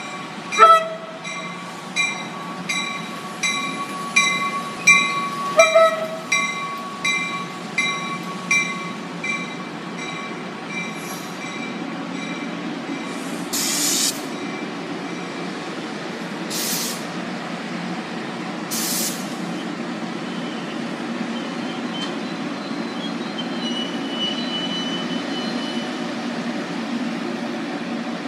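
Grade-crossing warning bell dinging steadily for the first several seconds, cut through by two short blasts of the approaching NJ Transit commuter train's horn. The train's coaches then roll slowly through the crossing with a steady low rumble, three sharp hisses of air, and a brief thin squeal of wheels or brakes near the end as the train slows for its station stop.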